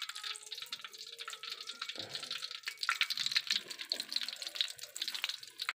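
Hot cooking oil in a metal wok sizzling and crackling as skewered sate aci (tapioca dough balls) fry in it; the crackle grows louder about three seconds in.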